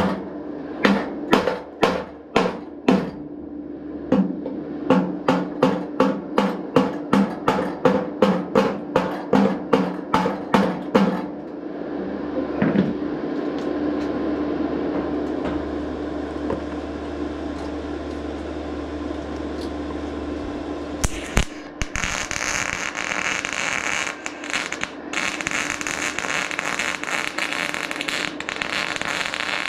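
A steel hammer beats a thin sheet-steel panel in a quick run of blows, about three a second, for the first ten seconds or so, then stops, leaving a steady hum. About 21 seconds in, a MIG welder strikes an arc and the weld crackles and sizzles steadily, with a few brief breaks.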